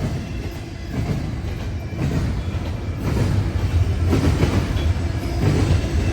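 Norfolk Southern intermodal freight cars rolling past: a steady low rumble of wheels on rail with irregular clatter, getting louder about three seconds in.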